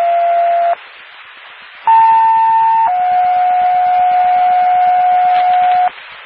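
Two-tone sequential pager alert over a fire dispatch radio channel, heard through a scanner: a long steady tone ends about a second in, then after a short stretch of radio hiss a higher tone sounds for about a second followed directly by a lower tone held for about three seconds. The tones page out the recall of off-duty firefighter platoons to a structure fire.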